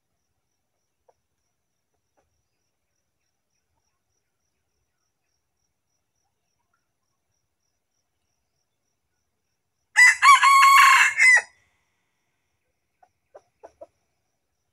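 A rooster crows once, close and loud: a brief first note, then a held crow, about a second and a half in all. A few faint clicks follow near the end.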